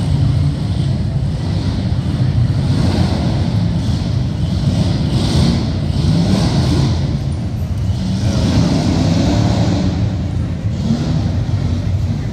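Ford Ranger prerunner's 5.0 V8 revving hard as the truck is driven over the dirt course, its engine note swelling and dropping several times.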